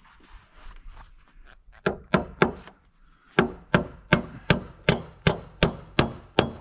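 Claw hammer driving a nail through a steel joist hanger into a wooden floor joist: three light taps to start it, a short pause, then a steady run of about nine blows, roughly three a second, each with a brief metallic ring.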